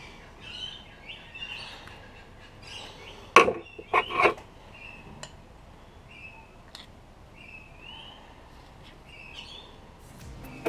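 Three sharp knocks of the aluminium TGV housing and tools being handled on a steel workbench: one about a third of the way in, then two close together half a second later. Faint high chirping runs underneath.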